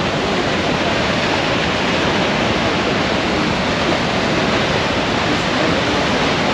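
Niagara Falls pouring over its brink: a steady, even rush of falling water, loud and unchanging.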